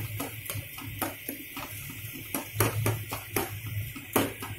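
Metal spoon stirring and scraping a thick tomato-onion masala in a steel kadhai, with irregular clinks and taps against the pan.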